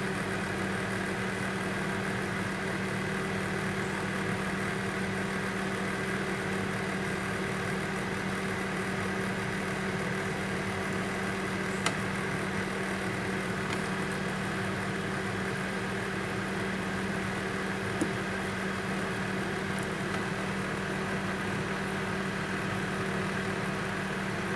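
Steady electrical hum with a constant hiss, and two faint clicks partway through.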